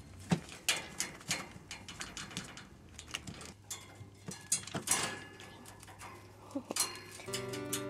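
Irregular sharp clicks and rattles of a wire pet cage as a kitten climbs and claws at the bars. Background music comes back in near the end.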